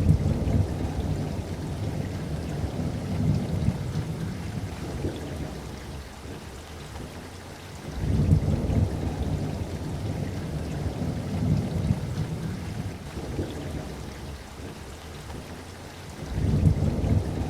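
Steady rain with rolling thunder: three long low rumbles, one at the start, one about eight seconds in and one near the end, each swelling and then dying away over several seconds.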